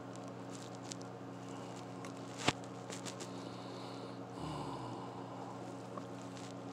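Steady low mechanical hum, with one sharp click about two and a half seconds in, a few faint ticks, and a brief low rumble a little past the middle.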